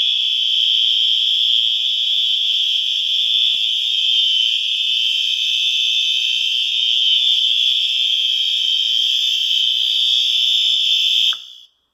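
Fire alarm sounder in continuous mode: one unbroken, loud, high-pitched tone that cuts off suddenly near the end as the alarm is switched off.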